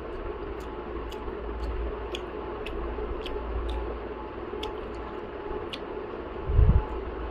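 Steady background noise with a string of light, irregular clicks and one dull low thump about six and a half seconds in.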